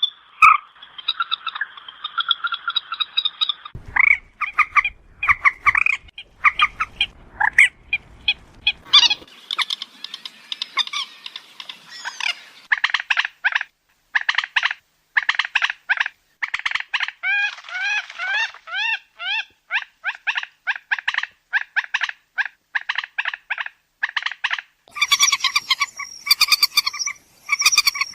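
Moorhen calling: a long run of short, sharp, croaking notes repeated several times a second, broken by brief pauses. Around the middle some notes are slurred upward, and near the end the notes come faster and higher in a quick chattering burst.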